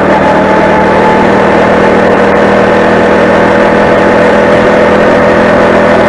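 Four-stroke motorized bicycle engine running at a steady pitch under way on the road.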